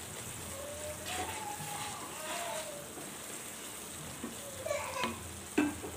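Onion-tomato masala sizzling in oil in a frying pan while a wooden spatula stirs it, with a couple of sharp knocks of the spatula near the end.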